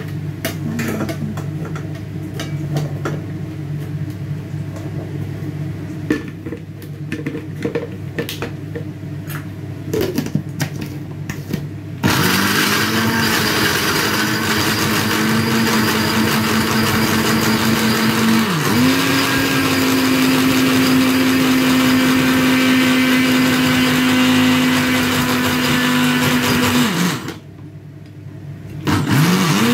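Electric kitchen blender switched on about twelve seconds in after some light kitchen clicks and knocks, running steadily with a loud hum that dips in pitch for a moment then settles slightly higher. It stops a couple of seconds before the end and starts again just before the end.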